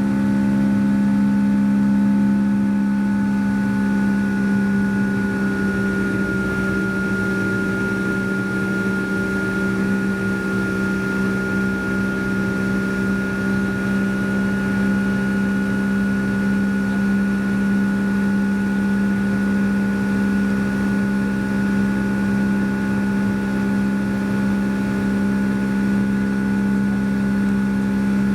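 Boeing 757's Rolls-Royce RB211 jet engines heard inside the passenger cabin, running steadily at high power: a steady drone with a deep hum and a high whine that dips slightly for a few seconds.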